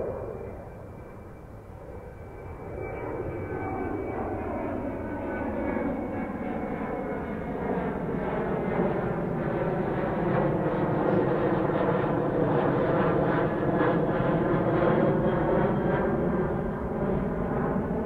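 Twin-engine narrow-body jetliner climbing out overhead after takeoff: the jet engine noise swells over the first few seconds and stays loud, with a sweeping, phasing quality as the plane passes, easing slightly near the end.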